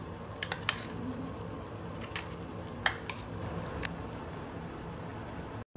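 A metal spoon clicking and scraping irregularly against a kadai as ground red-chilli masala is stirred into half-cooked chicken, with a steady background hiss.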